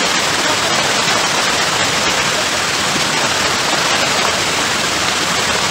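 Water rushing steadily over a low weir, a loud, even noise with no breaks.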